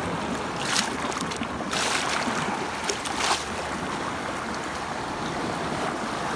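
Sea waves breaking and washing along the shore, a steady rush of surf with three louder splashes in the first three and a half seconds. The waves are running fairly high.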